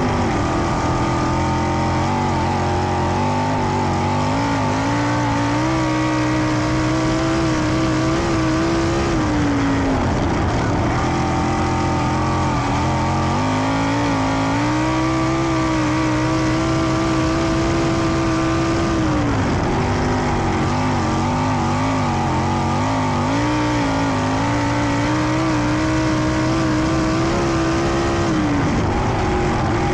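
A 410 sprint car's methanol-burning V8 engine at racing speed on a dirt oval, heard from on board the car. The engine note holds high along the straights and drops sharply about every nine seconds as the driver comes off the throttle for the turns, then climbs again.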